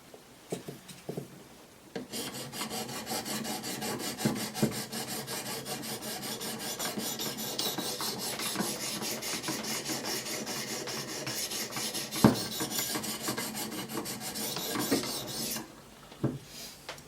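Sharpening stones on a Wicked Edge guided sharpener rasping in quick, even strokes along the edge of a Benchmade 710's D2 steel blade. The strokes start about two seconds in and stop shortly before the end, with an odd knock among them. They are a test grind on the Sharpie-marked bevel to show where the set angle meets the edge.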